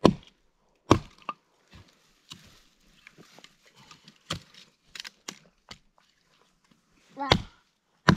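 Old Plumb axe chopping into a fallen log: heavy strikes at the start, about a second in and again near the end, with lighter knocks and chips cracking in between.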